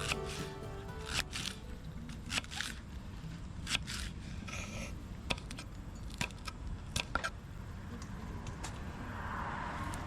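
Scattered clicks, taps and short scrapes of small objects being handled, over a steady low rumble.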